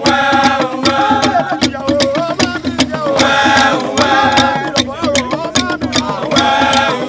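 A group of men singing together in chorus over Yoruba talking drums beaten with curved sticks, a quick steady rhythm of sharp drum strokes under loud voices.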